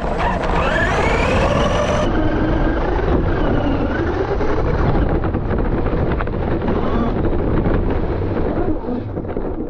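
FTX Carnage RC truck driving over a dirt woodland path, heard from a camera mounted on the car: the motor's pitch rises and falls with the throttle over steady rattling and rumbling of the chassis and tyres. The sound fades near the end.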